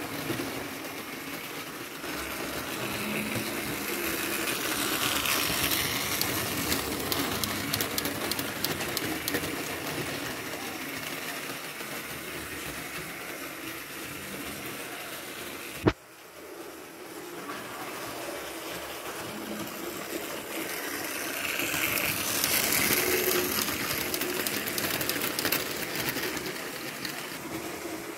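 Model train running on metal track: a steady whir of the small electric motor with the rattle of wheels on the rails, swelling louder and fading as the train comes and goes. A single sharp click about sixteen seconds in, after which the running noise builds up again.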